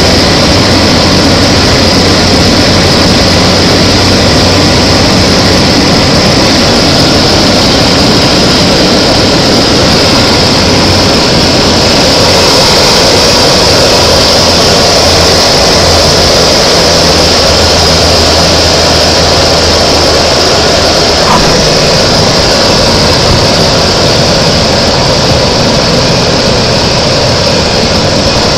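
Loud, steady engine and airframe noise of a small aircraft heard inside the cockpit as it comes down the final approach and rolls onto the runway. The low drone shifts a little about two-thirds through.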